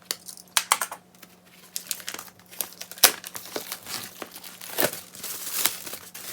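Plastic packaging crinkling and rustling in quick handling strokes, with a few sharper clicks, as album contents and photocards are pulled out and handled; a longer rustle comes near the end.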